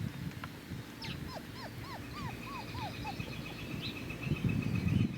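Mini Bernedoodle puppy whimpering in a quick run of about seven short, high yips, with low scuffling noise near the end.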